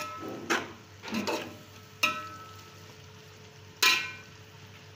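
Perforated metal skimmer stirring vegetables in a large metal pot, knocking against the pot about five times, each knock ringing briefly; the one near the end is the loudest. A low frying sizzle runs underneath.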